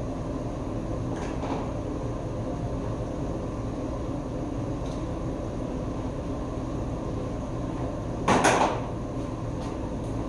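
Steady low hum of kitchen equipment, with one short, loud knock about eight seconds in, like a cupboard or door shutting.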